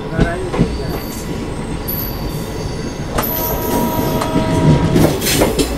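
Passenger coaches of an express train rolling slowly out of a station, heard from an open coach doorway: the wheels rumble on the rails, a steady wheel squeal rings out about three seconds in, and sharp clacks of the wheels follow near the end.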